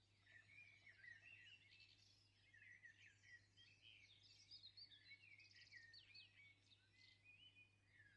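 Faint birdsong: many quick chirps and warbling trills from several birds, over a steady low electrical hum.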